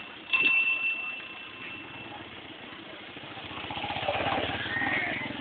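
A bell is struck about a third of a second in, and its high ringing tone fades over about two seconds. Then an engine runs with a rapid, even pulsing that grows louder toward the end, over general street noise.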